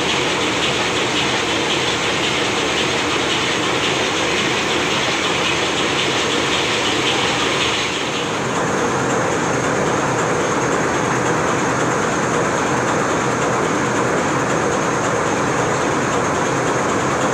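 Loud, steady machinery noise of a ship's engine room running, a dense mechanical din with a hiss on top that lessens about eight seconds in.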